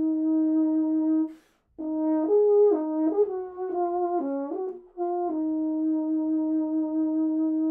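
Solo euphonium: a long held note, a quick breath about a second and a half in, then a fast run of notes that settles back onto the same long held note.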